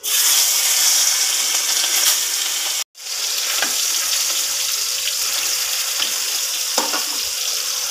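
Pangas fish pieces coated in salt and turmeric frying in hot oil in a kadai: a loud sizzle that starts suddenly as the fish go in. It cuts out for a moment about three seconds in, then goes on steadily with a few light spatula taps.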